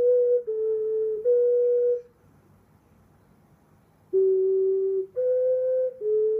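Ocarina played in slow, held notes that step between a few nearby pitches, each note lasting under a second. It stops for about two seconds in the middle, then the notes resume.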